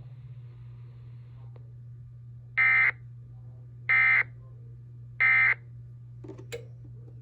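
Emergency Alert System end-of-message signal: three identical short bursts of digital data tones about 1.3 s apart, marking the end of the alert. A steady low hum runs underneath.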